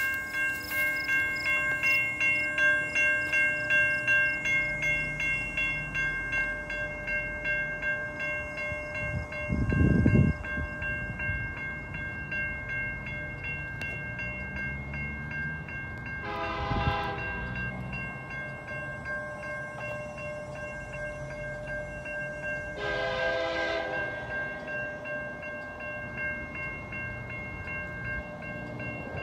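Level-crossing bells ringing in a steady pulsing rhythm, with two short locomotive horn blasts, one about halfway through and another some six seconds later. A brief low rumble about ten seconds in is the loudest moment.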